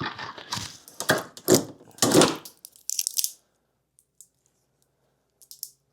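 Parts being worked loose by hand in a car's engine bay: a quick run of sharp clicks, cracks and short scrapes of plastic and metal for about three seconds, then only a few faint ticks.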